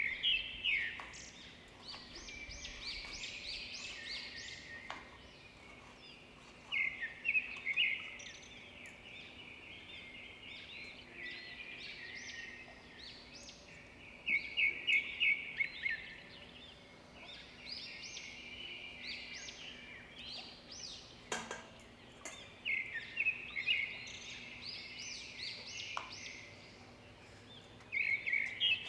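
Small birds chirping in repeated bursts of quick, high chirps every few seconds. A knife knocks softly on a wooden chopping board twice in the second half.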